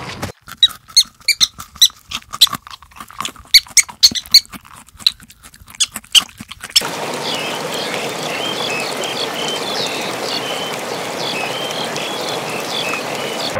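Rabbits chewing fresh greens: a fast run of crisp crunches and nibbling clicks, with a few faint high squeaks. About seven seconds in this gives way to a steady hiss with small birds chirping over it.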